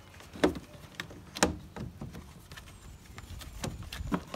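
Hard plastic clicks and knocks from a Vauxhall Corsa D's air filter box as the intake hose is pulled off and the lid is worked free of its clips, a few sharp knocks spaced apart over quiet handling noise.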